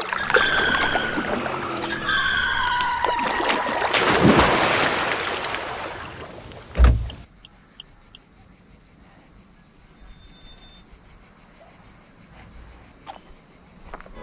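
Logo intro sound effects: whooshing noise with short chime-like tones, swelling about four seconds in and ending on a single deep boom about seven seconds in. After that comes a steady high-pitched buzz of cicadas in the dry scrub, with a few faint clicks just after the boom.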